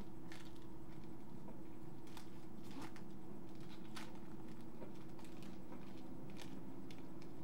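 Faint crinkles and clicks of a foil trading-card pack being opened and the cards handled, a few separate rustles spread through, over a steady low hum.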